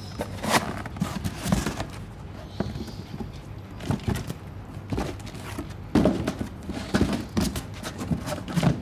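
Cardboard boxes being handled, pulled open and flattened on a concrete floor: an irregular run of knocks, scrapes and flaps of cardboard.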